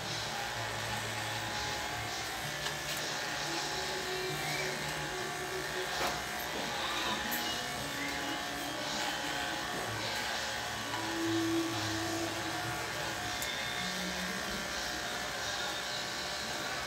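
Electric hair clippers buzzing steadily as they are run over a man's own closely cropped head, cutting his hair.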